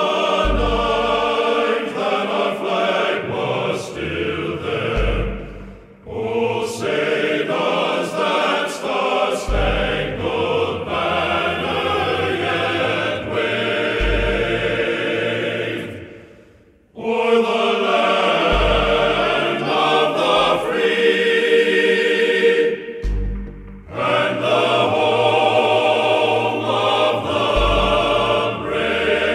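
Background music: a choir singing over an instrumental backing, with a deep low hit about every four and a half seconds and two brief drop-outs partway through.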